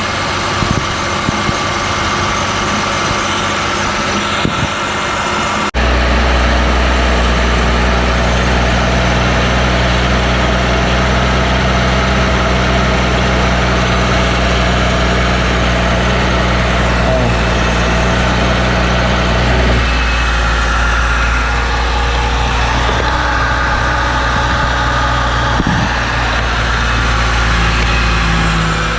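BMW 328xi's 3.0 L straight-six idling steadily with its new drive belt fitted. About six seconds in the sound suddenly turns deeper and louder, with a strong low hum that stays on.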